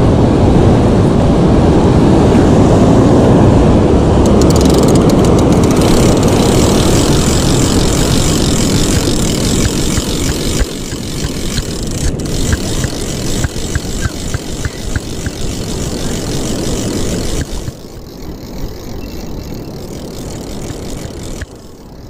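Wind rumbling on the microphone over the surf, loudest in the first half. From about four seconds in, a spinning reel is cranked fast in a rapid run of clicks as a crab snare with a crab on it is reeled in.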